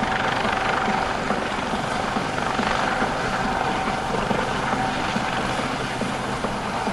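A U.S. Coast Guard MH-65D Dolphin helicopter flying, with the steady sound of its rotors and twin turboshaft engines and a steady whine running through it.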